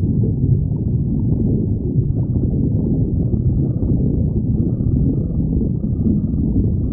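A person's stomach growling: a continuous low rumble with no break.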